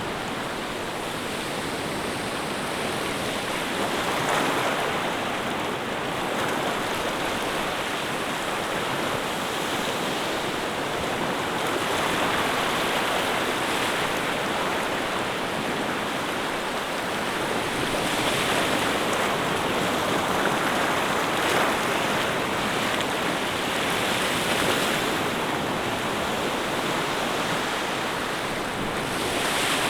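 Waves washing in, a steady rush of water that swells and eases every few seconds.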